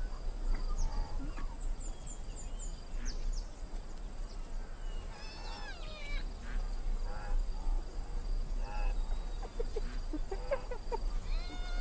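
Spotted hyenas calling: short pitched calls that rise and fall, about five seconds in and again near the end, over a faint steady insect tone.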